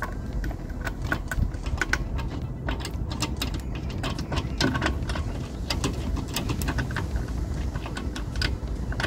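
Wheel nut being spun onto its stud by hand on a car's alloy wheel: a run of small, irregular metallic clicks and ticks as the nut turns and seats. A low steady rumble sits underneath.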